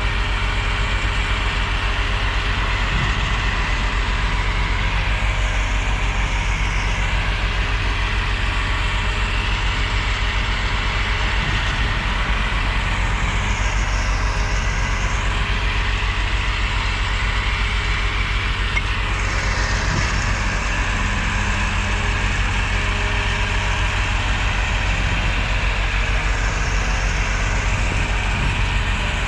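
Concrete mixer truck's diesel engine running steadily as the truck discharges its load, a constant low hum.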